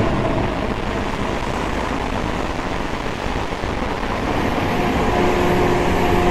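A loud, continuous droning rumble with steady low humming tones. The tones fade in the middle and swell back near the end: one of the unexplained 'strange sounds in the sky'.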